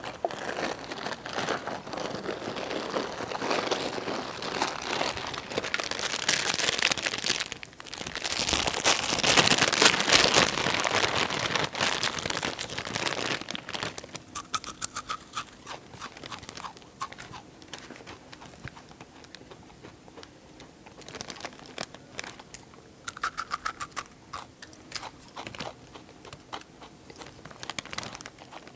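A bag of Takis rolled tortilla chips crinkling loudly for about the first half, then chips being crunched and chewed in sharp, scattered crunches.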